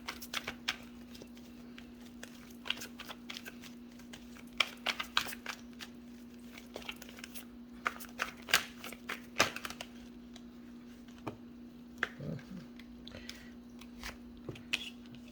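Tarot cards being shuffled and handled: irregular quick snaps and flicks of card stock, over a steady low hum.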